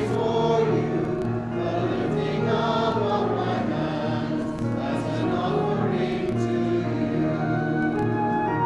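Background music: a choir singing over held low accompaniment notes.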